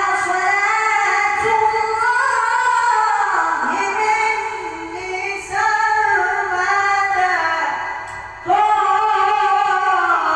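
A single high voice chanting an Islamic ibtihal (devotional supplication) unaccompanied-style in long, ornamented held notes that waver in pitch, in three phrases with short breaks about four seconds in and about eight seconds in.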